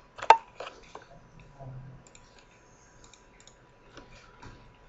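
One sharp click about a third of a second in, then a few faint scattered clicks and ticks from a computer mouse and keyboard being worked at a desk.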